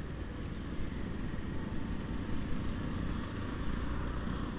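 Small commuter motorcycle being ridden along a road: steady engine running mixed with wind and road noise.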